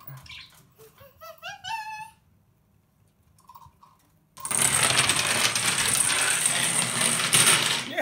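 A long chain of dominoes toppling one after another onto a wooden floor: a dense, continuous clatter of tiles that starts suddenly about four seconds in and runs for about three and a half seconds.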